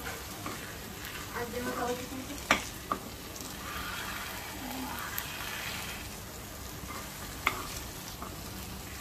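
A metal spoon stirring thick taro-leaf (kochu shak) mash in a frying pan over the heat, with a low sizzle. The spoon knocks sharply against the pan twice, close together, about two and a half seconds in, and once more near the end.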